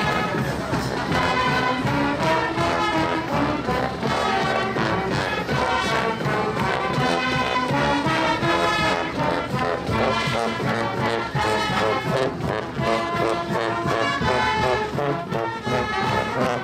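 Marching band playing a school fight song, brass (trombones and trumpets) carrying the melody over drums, with held notes and steady rhythm.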